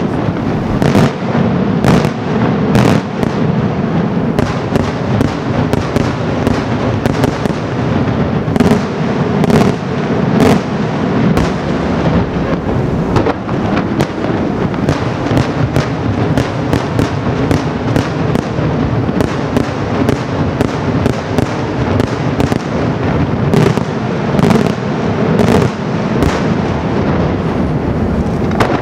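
Daytime fireworks display: a dense, continuous barrage of aerial shell bursts and bangs, several reports a second with no pause.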